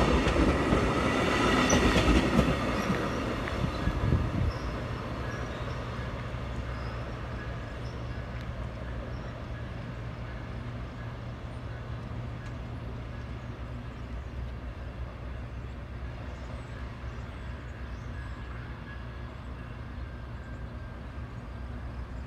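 VIA Rail Siemens Venture passenger train rolling past at close range as it departs, its wheels running on the rails with a few knocks. The noise falls off about four seconds in as the last car, the cab car, passes, leaving a quieter, steady low rumble as the train draws away.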